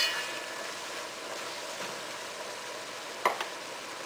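Beans simmering with a steady sizzle in a metal pot, with a clink of the spatula against the pot at the start and a single sharp knock about three seconds in.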